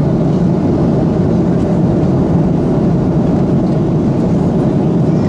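Steady cabin noise of an Airbus A330-200 in flight, heard at a window seat: a loud, even, low rumble of engines and airflow.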